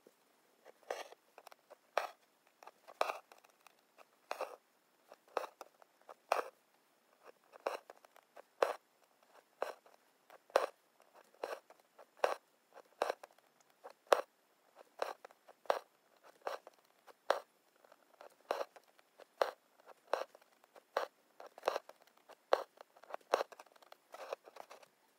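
Embroidery needle and floss being drawn through taut linen in a hoop, each stitch a short crisp scratch or pop, repeating irregularly about one to two times a second as the red mushroom cap is satin-stitched.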